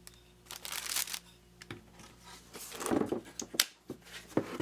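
Plastic sleeves crinkling as wood-handled lathe turning tools are handled in their wooden box, with a few light clicks and knocks of wood and steel.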